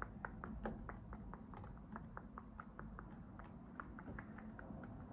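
Fingernails tapping on a clear plastic box, quick light taps about four or five a second, over a steady low background hum.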